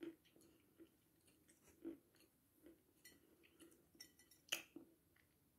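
A person chewing dry food close to the microphone: soft mouth clicks and crackles, with a sharper crunch about four and a half seconds in.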